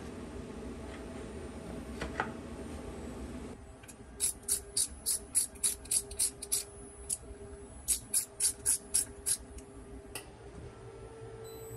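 CNC milling machine running, with a steady hum. From about four seconds in, a steady tone joins it, along with a string of short, sharp, high hissing bursts, two or three a second, in two groups.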